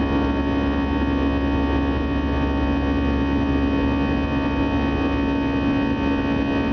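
Airbus A319 cabin noise in the climb after takeoff: the steady drone of the turbofan engines and the rush of air past the fuselage, with a strong steady hum.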